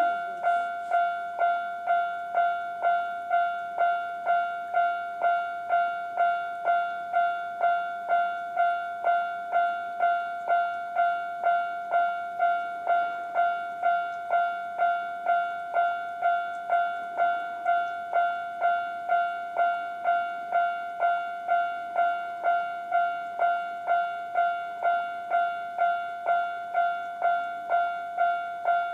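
Japanese railway level crossing's electronic warning bell ringing its normal tone, an even 'kan-kan' of just under two strikes a second that never breaks, warning that a train is approaching.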